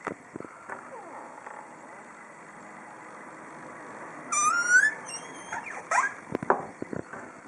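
Squeaky door hinge: faint creaks, then a short rising squeak about halfway through, followed by a few sharp knocks and clicks near the end.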